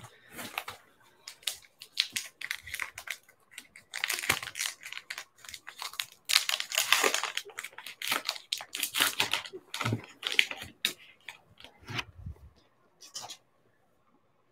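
Trading-card pack wrapper being torn open and crinkled by hand in a run of rips and rustles, loudest a little past the middle. The cards are handled with a few light ticks near the end.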